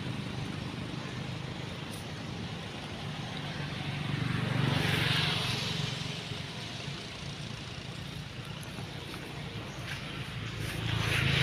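Vehicles passing by, each swelling up and fading away over a couple of seconds, one about five seconds in and another near the end, over a steady low engine hum.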